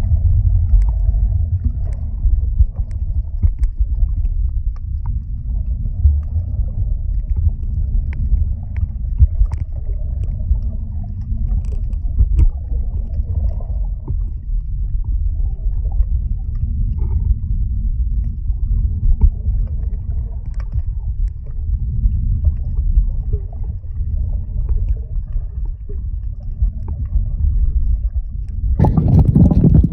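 Loud, steady low rumble of a moving vehicle, with a louder surge near the end.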